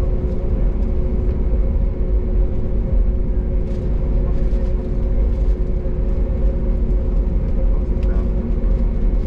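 Airbus A321neo taxiing, heard from inside the cabin: a steady low rumble with a steady hum from its Pratt & Whitney PW1100G geared turbofans at idle, and a few faint ticks.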